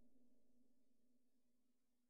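Near silence: a faint, steady low tone fading evenly away.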